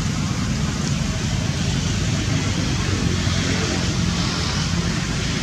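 Steady road traffic noise: an even rush of passing vehicles with engine rumble underneath.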